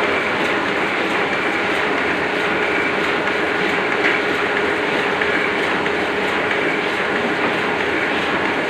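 Oliver offset printing press running at its normal working speed: a steady mechanical din with an even, repetitive clatter.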